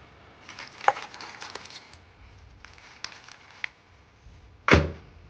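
Kitchen handling sounds while cooking: scattered light clicks and taps of cookware, then one heavier thump near the end.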